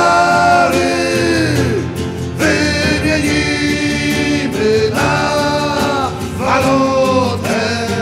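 Men's voices singing a Polish song in long, held phrases over instrumental accompaniment.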